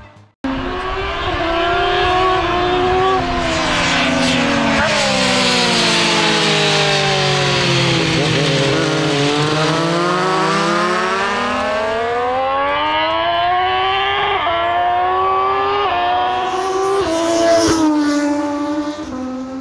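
Foggy Petronas FP1 racing motorcycle's three-cylinder engine running hard on track, with a short cut-out just after the start. Its pitch sinks slowly as it slows, climbs again, then from about twelve seconds in rises in steps through a series of quick upshifts as it accelerates away.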